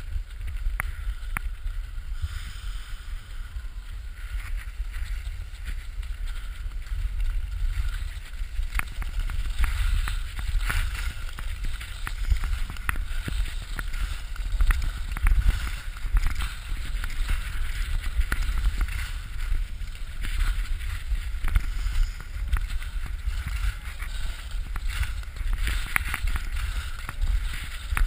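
Wind rumbling against the microphone of a downhill skier's action camera, with the steady hiss and intermittent scrapes of skis carving over packed snow.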